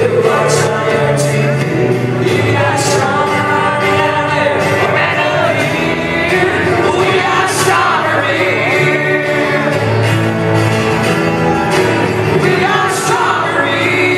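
Live country band performance: male voices singing, one holding the lead with another at a second microphone, over acoustic guitar and band accompaniment, heard from within the audience.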